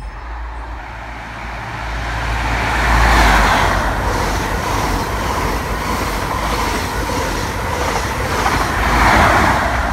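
LNER Azuma (Hitachi Class 800-series) train running past along the platform: a steady rumble and rush of wheels on rail, swelling about three seconds in and again near the end.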